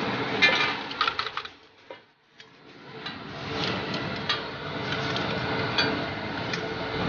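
Steel spatula clattering and scraping on a flat iron griddle, several sharp metal knocks, over the steady sizzle of eggs frying. The sound drops almost to nothing for a moment about two seconds in, then the sizzle and spatula knocks return.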